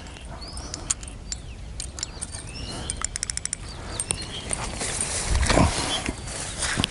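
Footsteps of someone wading and pushing through wet riverbank growth, with scattered clicks and snaps. The rustle grows louder from about four seconds in, with one heavier step near the end.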